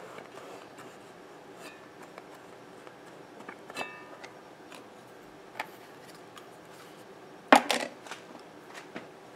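Scattered light clicks and taps of small tools and objects being handled during hand work, with a brief ringing clink a little before halfway and a sharp cluster of knocks about three-quarters through.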